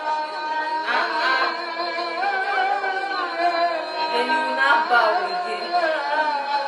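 A man's voice chanting the azan, the Islamic call to prayer, in long ornamented phrases that slide and waver in pitch over steady held notes.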